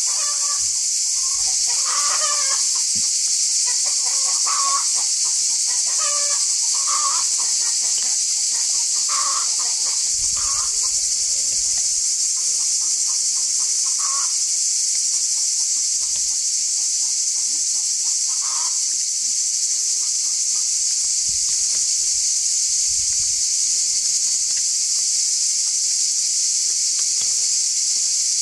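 Chickens clucking in short, scattered calls, most often in the first half. Behind them runs a steady, high-pitched drone of insects.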